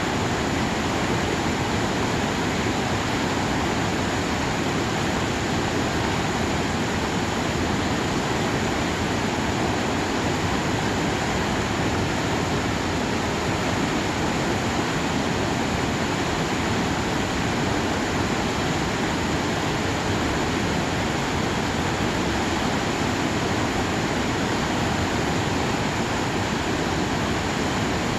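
Mountain valley stream swollen overnight, its water rushing steadily and evenly.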